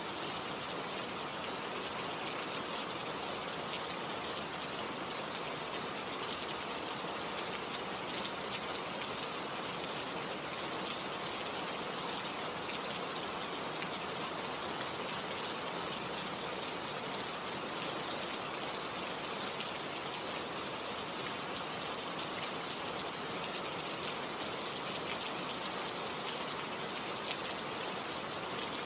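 Steady rainfall, a dense hiss of falling rain with many small drop ticks.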